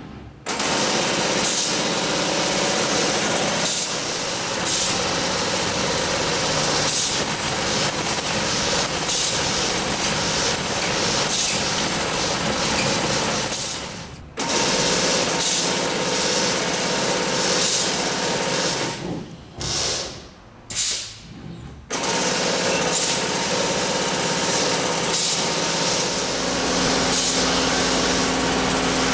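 Robotic tufting machine running, its tufting needle rapidly punching yarn into the backing cloth in a dense, fast mechanical chatter. The noise drops out briefly about halfway through and twice more a few seconds later.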